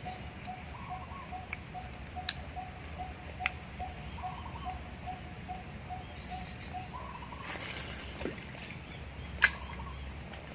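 A bird calling outdoors, repeating one short note about three times a second, until the calling stops about seven seconds in. A few sharp clicks stand out, the loudest about nine and a half seconds in.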